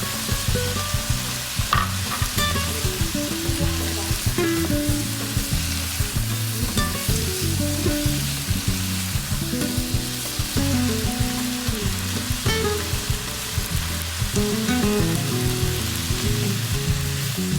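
Chicken and vegetables stir-frying in a pan, sizzling steadily as they are stirred, with soft background music underneath.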